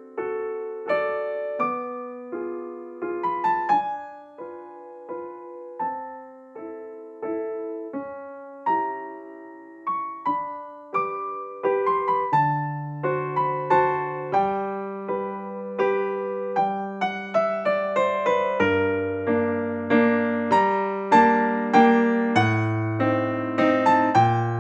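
Background piano music: a gentle melody and chords of struck notes that fade away, with lower bass notes joining about halfway through.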